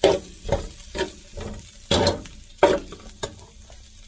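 Wire skimmer scraping and knocking against a metal paella pan about six times as pieces of chistorra sausage are stirred and scooped, over a light sizzle of the sausage frying in oil.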